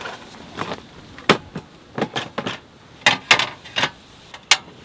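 A portable gas stove being handled and set up on a table: a series of sharp clacks and knocks, about seven spread over a few seconds, as its parts are moved and set in place.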